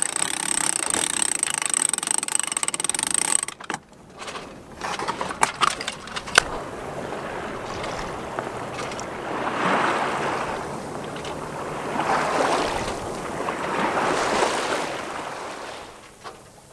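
Sailboat sheet winch cranked by hand with its winch handle, the ratchet clicking fast, for about three and a half seconds. Then a few sharp knocks, and water rushing along the hull of the sailing boat in three slow surges.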